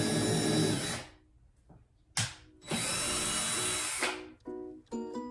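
Cordless drill boring a hole into a wooden 1x2 trim board. It runs for about a second and stops, gives a short burst a little after two seconds in, then runs again for about a second and a half and stops.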